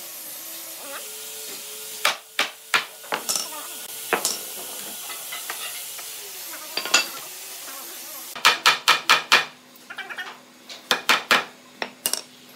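Sharp knocks and taps on the hardwood table frame as its joints are fitted: a few scattered strikes, then a quick run of about six strikes around eight seconds in, and a few more soon after.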